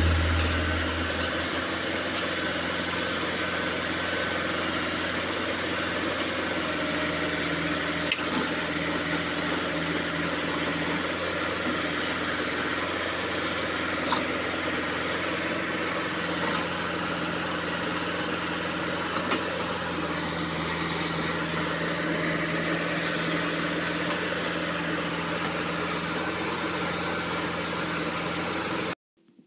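Backhoe loader's diesel engine running steadily as its rear excavator bucket digs soil, with a few brief knocks. The sound cuts off suddenly near the end.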